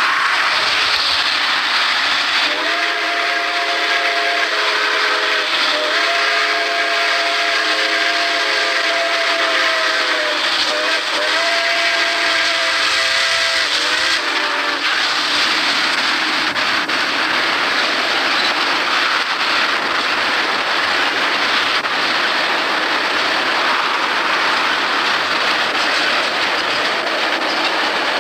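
Boston and Maine six-chime steam whistle on a Blue Mountain and Reading steam locomotive, blowing three chord blasts, the middle one the longest. The steady noise of the train running by continues throughout.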